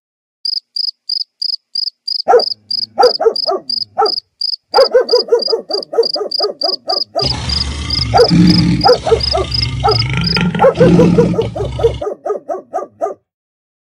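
Crickets chirping at a steady rate of about three chirps a second, with many short barks and yelps from dogs joining in about two seconds in. A rushing noise with a low rumble comes in about seven seconds in and cuts off suddenly about twelve seconds in.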